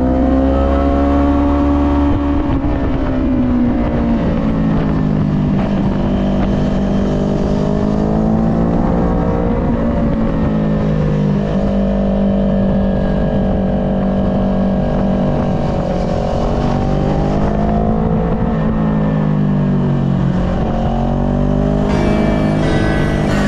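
Sport motorcycle engines running hard at road speed, their pitch rising and falling several times as the riders roll the throttle on and off through the bends.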